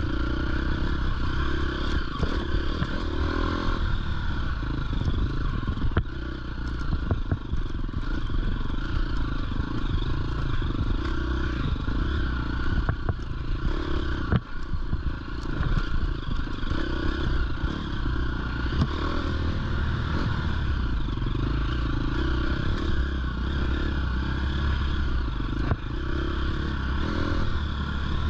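Dirt bike engine running steadily as it rides up a rocky dirt trail, with frequent sharp clatters and knocks from the bike's chassis and the stones under the tyres.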